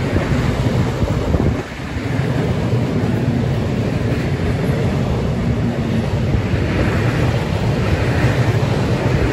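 Intermodal container freight train rolling past close by at speed: a steady rumble of wheels on rail, with wind buffeting the microphone and a short dip in loudness about two seconds in.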